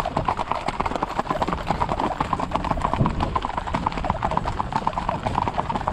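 Hoofbeats of a group of Standardbred horses moving at the pace (andadura), a rapid, overlapping clatter of many hooves.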